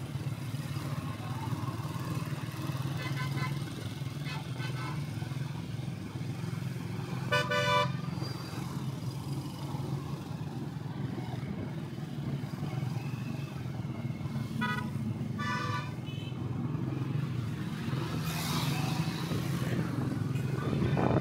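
Motorcycle engine running steadily through street traffic, with vehicle horns honking: a loud one about seven seconds in, two more around fifteen seconds in, and fainter ones early on in the traffic.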